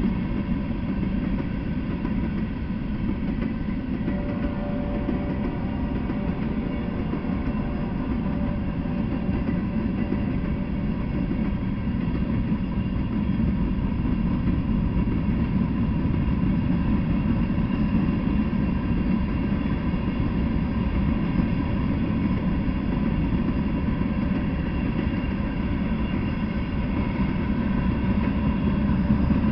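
Freight train of covered hopper and gondola cars rolling past on the rails: a steady, unbroken low rumble of wheels and cars.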